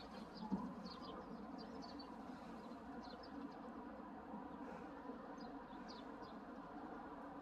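Small birds chirping, many short high chirps scattered throughout, over a steady low hum, with one brief soft knock about half a second in.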